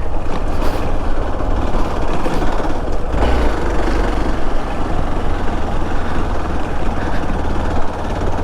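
Motorcycle engine running steadily while riding a rough off-road dirt track, with a slight surge about three seconds in.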